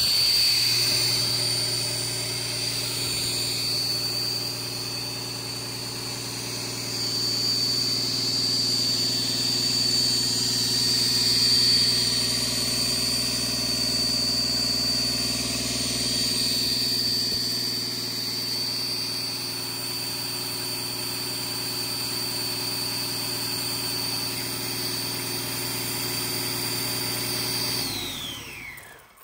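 Rebuilt Doosan DL06KB six-cylinder diesel engine running steadily with its valve cover off, the valve gear exposed, under a high steady whine. Near the end it shuts down: the whine falls in pitch and the engine runs to a stop.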